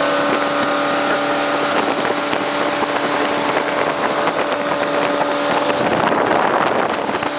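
Speedboat engine running at speed, a steady hum under rushing wind and water. The wind and spray noise grows heavier near the end and buries the engine tone.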